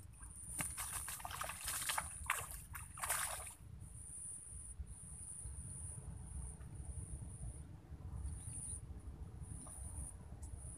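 An insect trilling very high and steadily in stretches of about half a second to a second, broken by short gaps. Brief rustles and clicks come in the first three seconds or so, over a low rumble.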